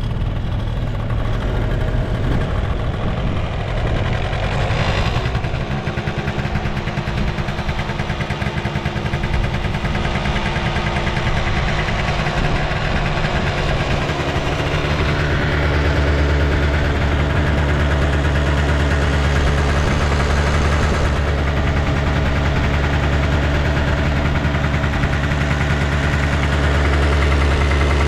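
Honda Live Dio AF35 scooter's 50cc two-stroke single-cylinder engine idling steadily, its low note stepping up and getting louder about fifteen seconds in. The seller judges it free of abnormal noise.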